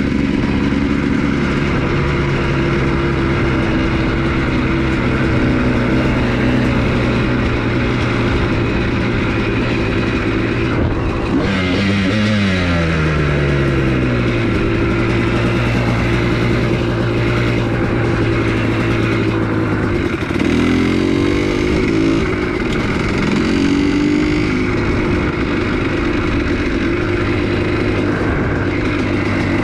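Honda CR250R 250 cc two-stroke single-cylinder dirt bike engine running under way at steady revs. About twelve seconds in its pitch falls away as the throttle is rolled off, and around twenty seconds in the revs rise twice as it picks up again.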